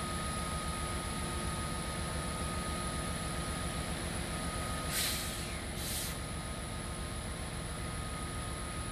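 Kansas City Southern diesel locomotives running at low engine speed, a steady pulsing rumble. About five seconds in there are two short hisses about a second apart.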